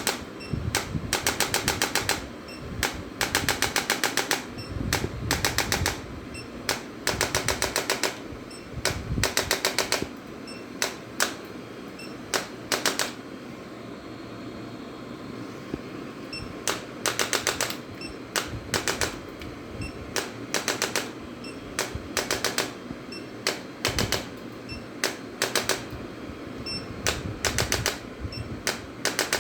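Bursts of rapid mechanical clicking, about a dozen evenly spaced clicks a second, in runs lasting from a fraction of a second to about a second, repeating with short gaps.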